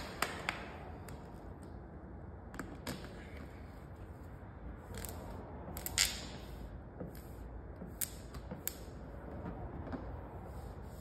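A heat gun's blowing stops in the first second, then light scattered clicks and crinkles as vinyl wrap film is handled and trimmed with a blade at a car door's lower edge, the sharpest click about six seconds in.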